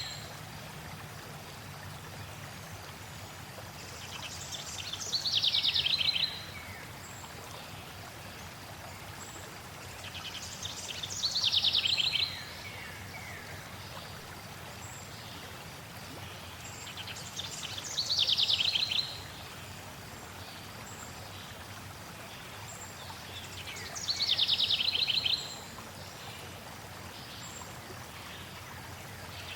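A songbird repeats the same short phrase about every six seconds: a fast trill of notes sliding downward, growing louder toward its end. Steady rushing of flowing water underneath.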